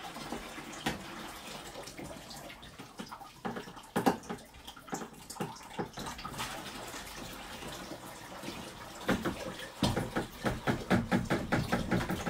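Dirty water splashing and trickling as a large aquarium pump's pipework is taken apart and drained into a bucket, with scattered handling knocks. Near the end the knocks and splashes come thick and fast.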